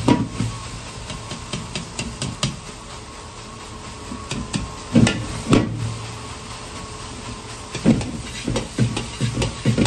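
Metal ladle knocking and scraping against a wok as egg fried rice is stir-fried and tossed, over a steady hiss. A cluster of knocks comes at the start, two more about five seconds in, and a quick run of knocks from about eight seconds on.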